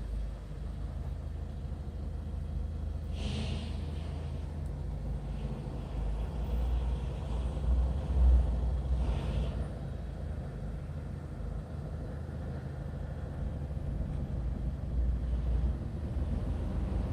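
Low, steady rumble of a Hyundai Tucson running at idle, with two brief hisses, about three and about nine seconds in.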